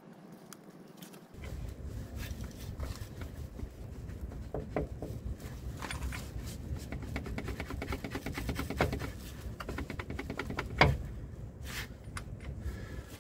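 Wind buffeting the microphone, starting about a second in, with light clicks and knocks as a gloved hand grips and handles the van's driveshaft; one sharper knock comes near the end.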